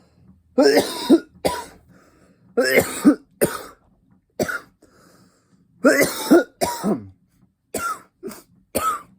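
A man coughing over and over in several fits, with throat clearing, his throat irritated from inhaling cannabis.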